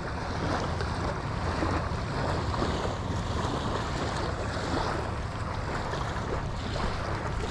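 Steady surf on the beach mixed with wind buffeting the microphone, a constant low rumbling hiss.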